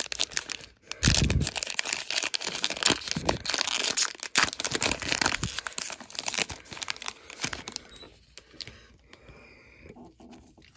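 Wrapper of a trading card pack being torn open and crinkled by hand, dense crackling for about seven seconds with a low thump about a second in, then quieter handling near the end.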